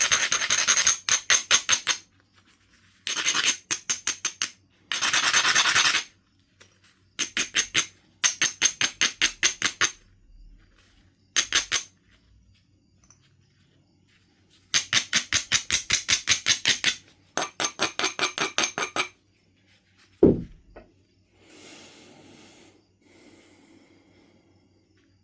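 An abrading stone rubbed back and forth along the edge of a Knife River Flint piece in bursts of quick strokes, about four or five a second, with pauses between bursts: grinding the edge for platform preparation. About 20 seconds in, a single sharp knock.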